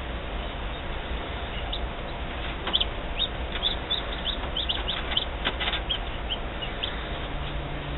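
Newly hatched chicks peeping inside an egg incubator: a quick run of short, high peeps, each falling in pitch, over a steady low hum.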